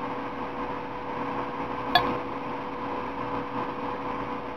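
Seed beads being picked up on a beading needle: one small click about two seconds in, over a steady electrical hum.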